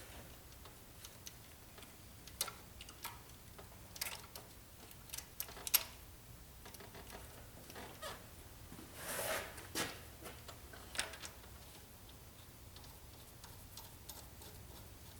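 Scattered light clicks and taps of hand tools and metal timing parts being handled on a PowerTech 4.7 V8 as its timing chain, tensioner and slides go back on, with a softer scraping rustle about nine seconds in.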